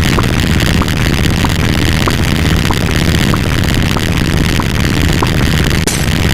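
A loud, dense wall of many overlapping sound effects with a heavy low rumble underneath. A short, high blip repeats about every two-thirds of a second through it.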